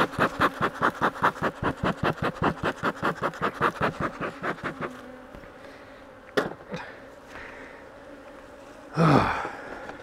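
Agitated honey bees buzzing in a fast pulsing run close to the microphone, about six pulses a second, fading out about five seconds in; a sharp tap follows after six seconds, and a man gives a groaning sigh near the end.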